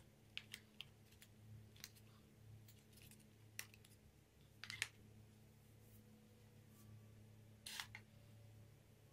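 Faint clicks and short rustles of a folded paper gift box being handled and flexed, over a low steady hum; a brief louder rustle comes near the end.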